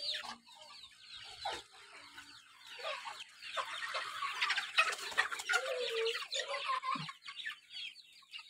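A flock of chickens: many chicks peeping in short high chirps, mixed with hens clucking. The chirping is busiest in the middle.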